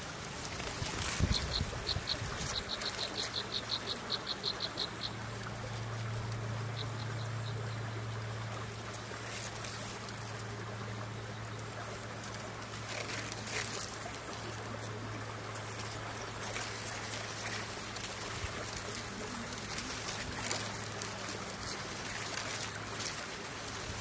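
A bird chirping in a rapid run of high, evenly spaced notes, about five a second, for a few seconds and again briefly a little later, over a steady low hum.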